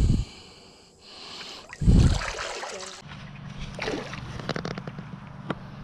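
Water splashing in two loud surges, at the start and about two seconds in, as a hooked sea trout thrashes at the surface. In the second half a run of sharp ticks sounds over a steady low hum.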